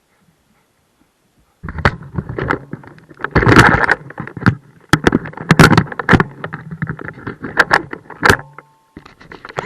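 Electric RC car's motor running with its drivetrain rattling and knocking, starting about a second and a half in and stopping near the end.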